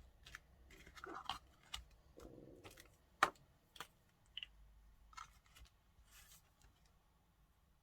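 Paper and card being handled and cut by hand: scattered light snips, clicks and rustles, with one sharper click about three seconds in.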